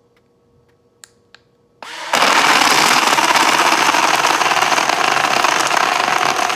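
BlendJet portable blender switching on about two seconds in, after a couple of faint clicks, and then running loud and steady as it crushes ice in a full protein shake.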